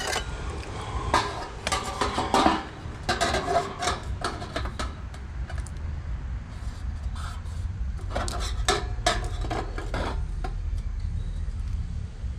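Stainless steel sheet-metal pieces clanking and scraping as they are handled and worked into place, in several bunches of sharp metallic knocks. A steady low hum runs underneath.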